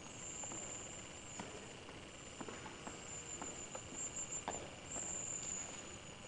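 Faint background hiss with a thin, steady high whine and a few scattered, irregular soft clicks.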